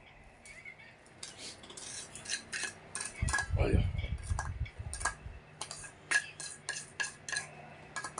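Plastic serving utensils clicking, tapping and scraping against a stainless steel bowl as food is picked out of it. There is a quick run of light clicks, and a heavier scraping, handling stretch about three to four seconds in.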